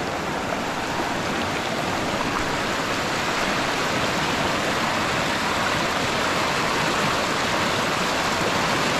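Swollen stream rushing steadily, its fast floodwater current giving an even, unbroken roar of water.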